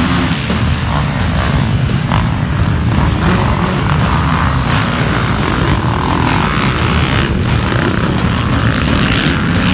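A pack of motocross dirt bikes at full throttle, launching off the start gate and racing away into the first turns, many engines revving loudly at once.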